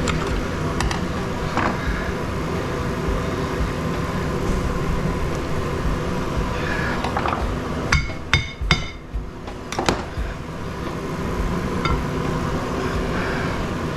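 A few sharp hammer strikes on the cast-iron housing of an industrial electric motor, ringing metallically, bunched together a little over halfway through, over steady background noise. They are blows knocking the end bell off the motor so the stator and rotor can come out.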